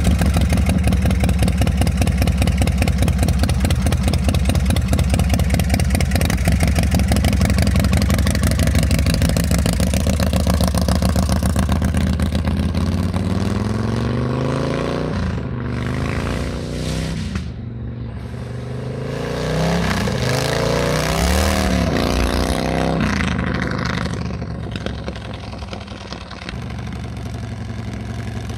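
Custom chopper's 127-cubic-inch Ultima V-twin engine idling, then pulling away under hard acceleration, its pitch climbing and dropping back with each gear change. It fades into the distance and grows louder again near the end as the bike comes back.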